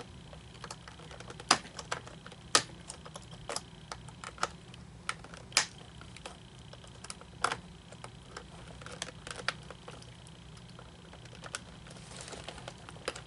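Irregular small clicks and taps of a flathead screwdriver prying at the plastic parts of an animatronic figure's hip mechanism, with a few sharper knocks.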